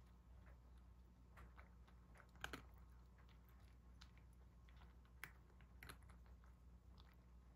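A cat eating soft food from a ceramic bowl: faint, irregular clicks of chewing and licking, the sharpest about two and a half seconds in.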